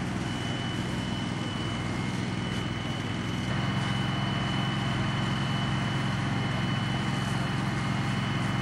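A steady engine drone under a hiss of spray from the fire hoses' water jets, with a constant thin high tone over it. The drone gets louder about three and a half seconds in.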